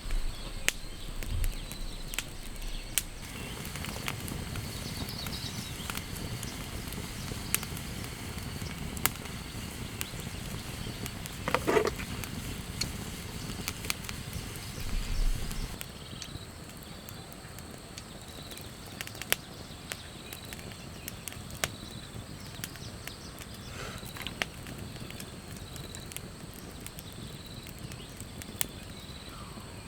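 Rain on a tent: a soft steady hiss with irregular sharp taps of drops hitting the fabric. A brief squeak comes about twelve seconds in, and the hiss eases a little about halfway through.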